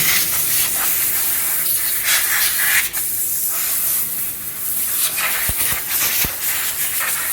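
Water spray jets hissing on a paint pretreatment line, rinsing die-cast aluminium door closer bodies after their chromate dip, with a few light knocks of metal parts.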